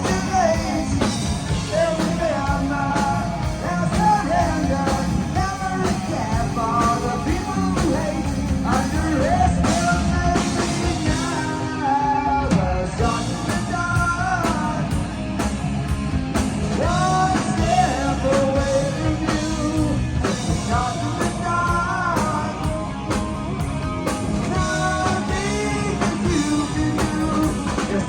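Hard rock band playing live: drums, bass and electric guitar, with a lead melody that bends in pitch over them.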